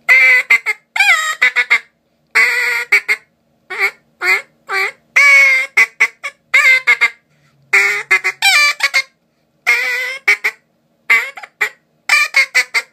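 Basin Calls HalfPint modified double-reed duck call blown in teal calling: runs of short, high-pitched quacks in quick succession, broken by brief pauses between phrases.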